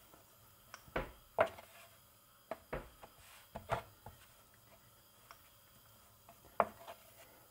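Hands pressing and patting out raw flatbread dough on a floured board. There are scattered dull taps and knocks, in a cluster in the first few seconds and one sharper knock near the end.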